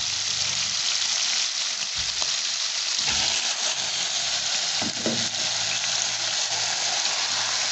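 Diced bacon and cubes of raw chicken breast sizzling in hot oil in a pan as the chicken is tipped in, a steady frying hiss with a few light knocks.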